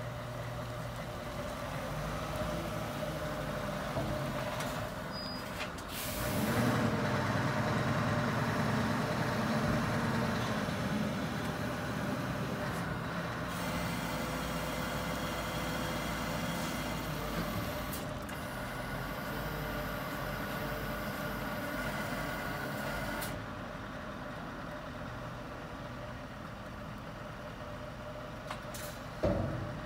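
Scania R580 tipper truck's V8 diesel running as the hydraulic tipping body is raised, getting louder about six seconds in. A steady hiss runs through the middle and stops abruptly, and there is a short knock near the end.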